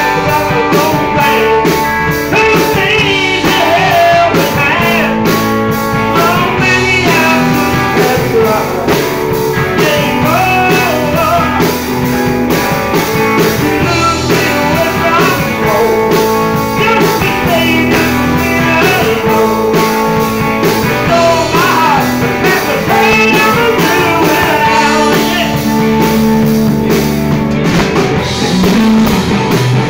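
Live rock band playing: electric guitars and drum kit, with a male lead singer singing into a handheld microphone.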